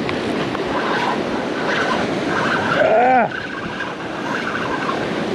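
Steady wash of surf and wind noise, with a short voiced "ah" about three seconds in.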